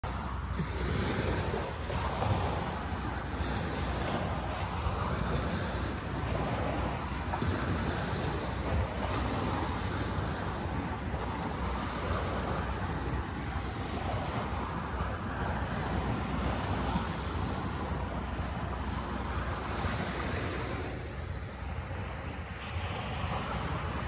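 Sea waves washing onto a sandy beach, the surf swelling and fading every few seconds, with wind rumbling on the microphone.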